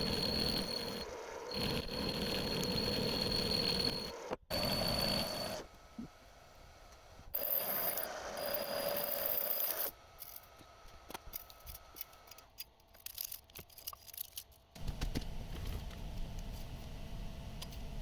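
Metal lathe turning a thick mild-steel plate with a carbide insert in an interrupted cut, the tool ringing with a steady high tone over the cutting noise. The sound breaks off abruptly several times, and after about ten seconds it is quieter, with scattered light ticks.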